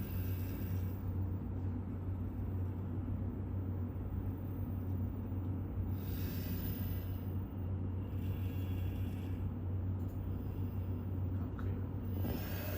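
Robot arm's servo motors running through a taught program: a steady low hum, with short spells of higher whirring as the joints move, about six and eight seconds in and again near the end.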